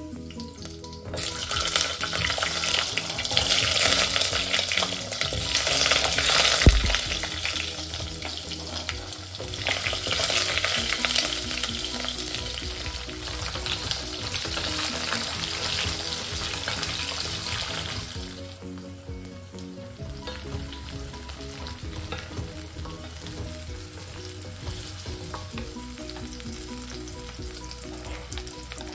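Whole shallots and cumin frying in hot oil in a stainless steel kadai, with a spatula stirring. A loud sizzle starts suddenly about a second in, with a single knock about six seconds in. The sizzle dies down to quieter frying for the last ten seconds.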